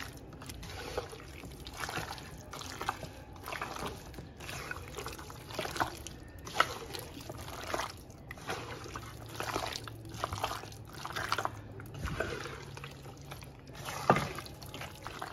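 Hands squeezing and turning raw chicken pieces in a thick spice marinade in a metal pot: irregular wet squelches and slaps.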